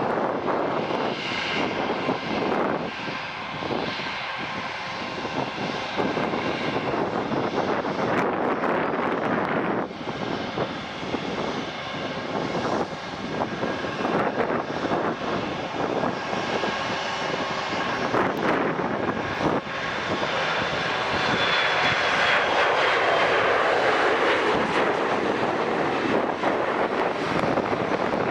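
Airplane engines running, a steady dense rush that grows louder about two-thirds of the way through, with a faint high whine that falls slightly in pitch.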